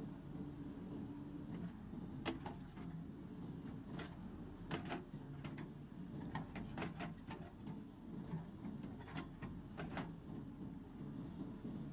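JCB 3DX backhoe loader's diesel engine running steadily, with scattered sharp knocks from the working machine, in small clusters every couple of seconds.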